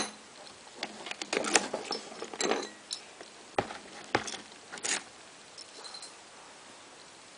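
Alarm padlock being handled and locked: a sharp click at the start, then scattered metallic clicks and short rattles over the next few seconds, dying away near the end. No alarm sounds, because the hook is set to the silent-locking side.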